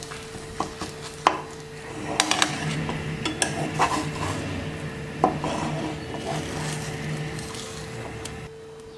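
Spatula scraping and knocking against a nonstick frying pan as eggs are stirred, in irregular clicks and scrapes over a steady hum.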